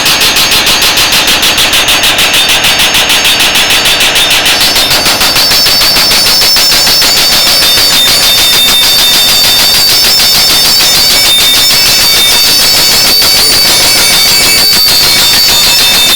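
Furukawa Rock Drill FXJ175 hydraulic breaker hammering rapidly, at about eight or nine blows a second. About five seconds in the blows run faster and merge, and a high steady ring comes in.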